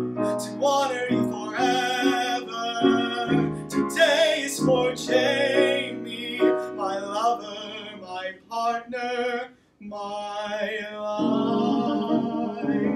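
A tenor singing a musical-theatre song with piano accompaniment, his sustained notes carrying vibrato; the sound drops away briefly just before ten seconds in.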